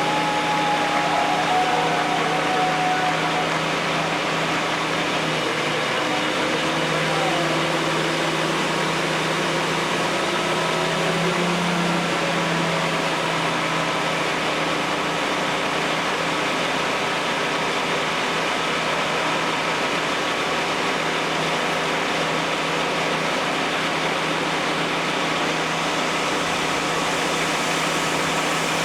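An engine running steadily with an even hum, and faint voices wavering in the background during the first dozen seconds.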